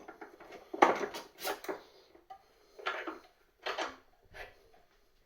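Metal parts clinking and knocking a few times as a pedal is handled in a steel bench vise. The sounds come as a short cluster about a second in, then single clinks every second or so.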